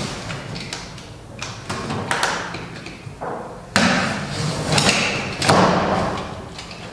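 Cardboard box and its packing being opened and handled: irregular rustling and scraping with dull thuds, the loudest starting suddenly a little under four seconds in.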